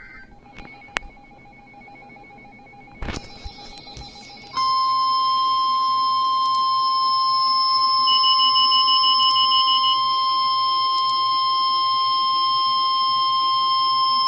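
NOAA Weather Radio warning alarm tone: a single steady 1050 Hz tone that starts suddenly about four and a half seconds in, holds for about ten seconds and cuts off sharply. It is the attention signal sent ahead of a severe thunderstorm warning broadcast. Before it there is only a faint hum and two clicks.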